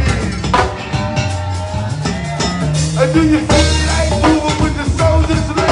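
Live go-go band music: a deep bass line held in long notes under steady drum and percussion hits.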